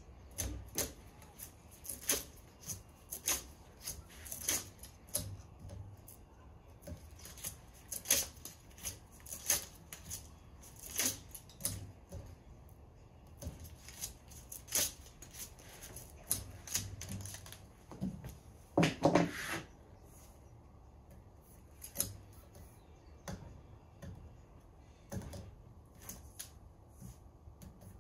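Irregular clicks and taps of hands working double-sided grip tape onto a golf club shaft. About two-thirds of the way through comes a louder rustle lasting about a second.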